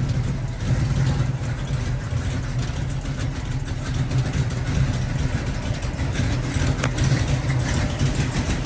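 Cammed LS V8 in a G-body Monte Carlo SS idling, a steady low exhaust note that flickers unevenly. New header gaskets are fitted, and the owner hears none of the earlier header leak noise.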